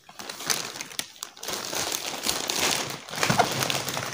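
Plastic packaging crinkling and rustling as items are unwrapped and handled, in uneven spurts with a few sharp clicks.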